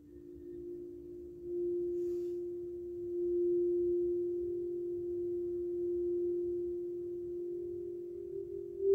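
A tall metal-column sound instrument, its thin metal rods stroked by hand, sounding one steady, pure, ringing tone. The tone swells louder in waves and is loudest near the end.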